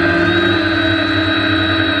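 Brushless motors and propellers of a multirotor drone in flight, heard close up from its onboard GoPro: a steady, loud whine of several tones over a low rumble, shifting slightly in pitch.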